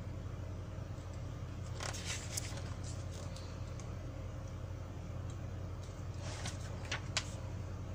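Pages of a glossy magazine being handled and turned: paper rustles and crackles about two seconds in and again near the end, over a steady low hum.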